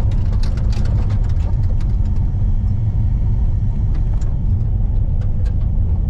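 A car driving along a rough asphalt road, heard from inside the cabin: a steady low rumble of engine and tyres, with scattered light ticks.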